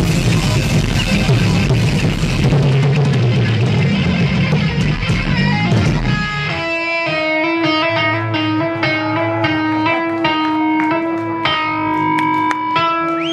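Heavy metal band playing live, loud, with distorted electric guitars, bass and drums together for about six seconds. Then the full band drops away and an electric guitar plays a melodic line of separate, held single notes.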